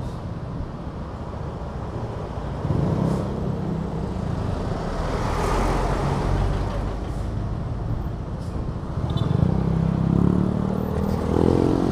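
Road traffic close around a slow-moving electric scooter, with the low, steady running of a bus's and a truck's engines alongside. A broad hiss swells around the middle, and the engine sound grows louder near the end.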